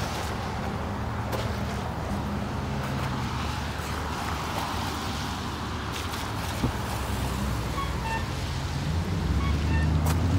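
Road traffic: cars and a larger vehicle passing on wet pavement with a steady tyre hiss and engine hum, swelling near the end as one draws close. In the last couple of seconds, faint short high chirps repeat in small groups.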